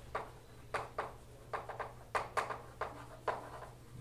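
Chalk writing on a blackboard: an irregular string of sharp taps and short scratches, several a second, over a faint steady low hum.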